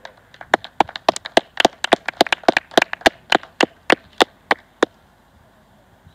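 Hand clapping close by, a few people applauding: quick and uneven at first, then thinning to single claps about three a second, which stop about a second before the end.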